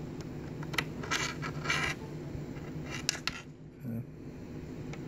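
A few light clicks and two short scratchy scraping sounds from hands handling small parts and cables on a workbench, over a low steady hum.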